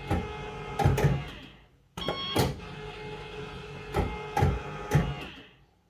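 Bellfruit Firecracker fruit machine spinning its reels twice. Each spin is a steady mechanical whirr that ends with the reels stopping one after another in sharp clunks. The second spin starts about two seconds in.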